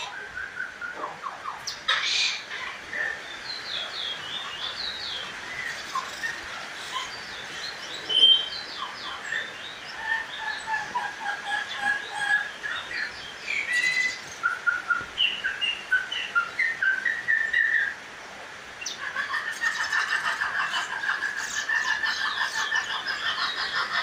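A caged bullfinch singing: repeated short bursts of quick, chirping whistled notes, then a longer, dense trilled phrase near the end.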